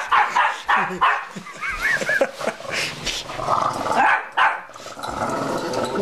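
Two small dogs, a Boston Terrier and a Yorkipoo, playing with a run of short barks and growls and a few high yips about two seconds in. The growling is play, not aggression.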